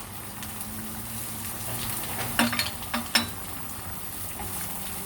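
Chopped onions frying in hot ghee in a small pan, a steady sizzle. A spoon knocks and scrapes against the pan a few times around the middle.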